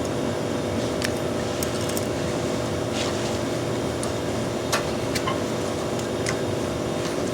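Steady mechanical hum with several faint, sharp clicks and taps scattered through it.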